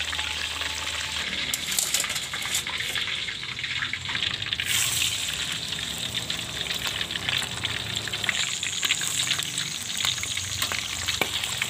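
Boiled chicken breasts deep-frying in hot oil in a wok: a steady crackling sizzle with occasional clicks, the chicken being fried only to half-done.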